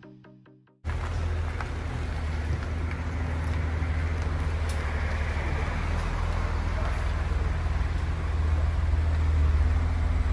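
A car driving: steady low engine rumble with road and tyre noise, cutting in abruptly about a second in and holding level. The tail end of electronic music fades out before it.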